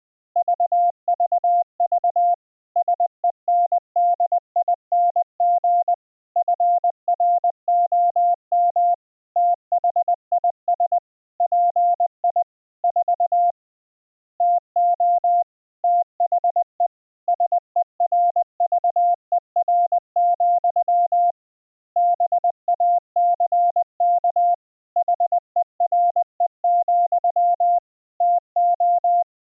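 Morse code (CW) as a single steady audio tone, keyed on and off in fast dots and dashes, with longer gaps between words.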